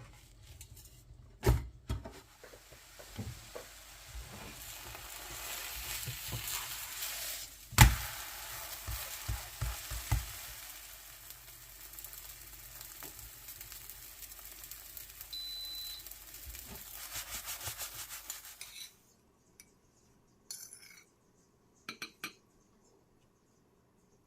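Batter frying in hot oil in a pan, a steady sizzle that cuts off suddenly about three quarters of the way through, with a few sharp knocks of a utensil against the pan, the loudest early on the sizzle. A few faint clicks follow.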